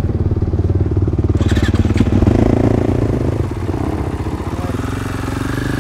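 Off-road motorcycle or quad engine idling with a steady rapid pulse, its pitch lifting briefly about two seconds in before settling back to idle. A couple of sharp clicks come just before that.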